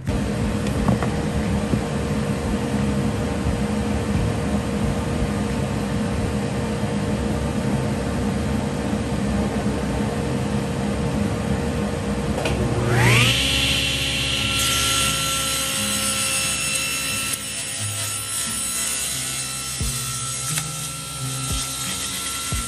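A power tool cutting wood, running steadily with a constant hum for about thirteen seconds. Then a motor's whine climbs quickly in pitch and holds as a steady high whine, a table saw at full speed.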